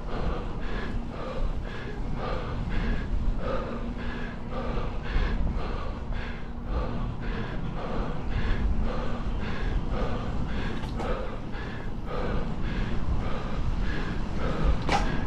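Cyclist panting hard and evenly on a steep climb, about two breaths a second, so out of breath he is close to an asthma attack. A steady low rumble runs underneath, and there is a sharp click near the end.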